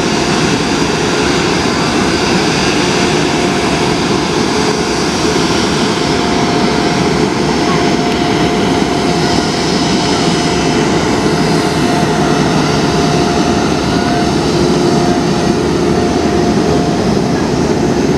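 Jet engines of a taxiing Airbus A330 airliner running at low taxi power: a loud, steady rushing noise with a faint steady whine through it.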